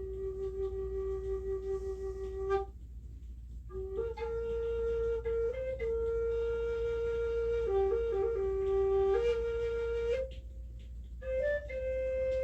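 A slow melody played on a flute-like wind instrument: long held notes stepping up and down, with two short pauses between phrases.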